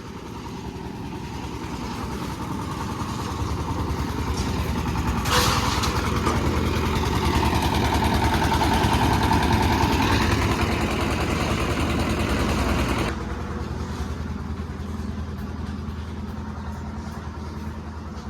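An engine running, growing steadily louder over several seconds, holding loud, then dropping sharply about thirteen seconds in to a lower steady hum.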